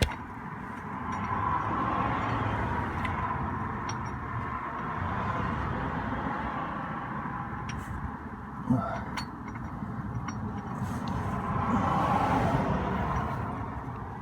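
Road-vehicle noise, swelling and fading twice as vehicles go by, with a few faint clicks and a short knock about nine seconds in.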